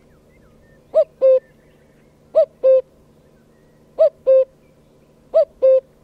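Cuckoo calling its two-note "cuck-oo" four times at even spacing, the second note of each pair lower than the first.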